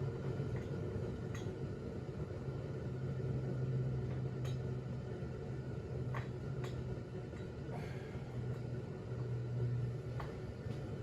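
Steady low mechanical hum of room background, with a few faint, short clicks scattered through it.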